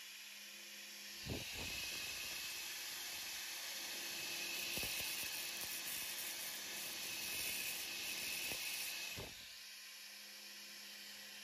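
MIG welder arc sizzling and crackling steadily while laying weld to build up a damaged crankshaft tone ring. It starts about a second in and stops near the end, with a few sharp pops.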